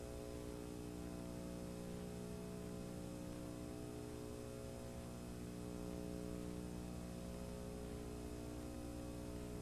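Steady electrical hum made of several level tones under a faint hiss, unchanging throughout.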